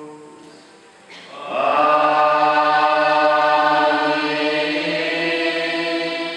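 Choir voices singing a slow liturgical chant. The singing swells in about a second in and holds long, steady notes.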